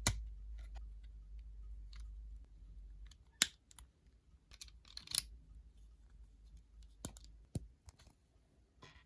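Plastic Lego bricks clicking and snapping as pieces are handled and pressed together, in scattered sharp clicks with the loudest a little over three and five seconds in.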